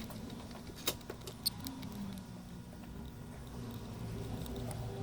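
Light scratching and a few sharp clicks from small parts being handled during PS5 repair work, over a faint steady low hum.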